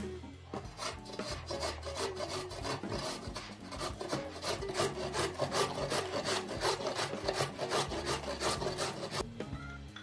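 A carrot grated on a flat stainless-steel hand grater resting on a wooden board: a rasping scrape with each stroke, about three to four strokes a second, starting about a second in and stopping near the end.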